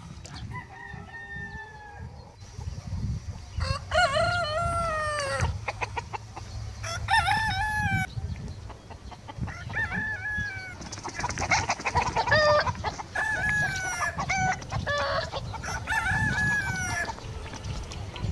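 Pavlovskaya roosters crowing again and again, about eight crows in all, a few overlapping.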